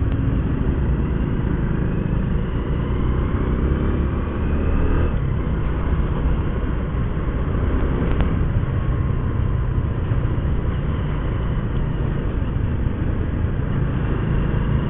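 Motorcycle engine running while riding through traffic, with road and wind noise. The engine note climbs briefly about four seconds in as it speeds up, then settles.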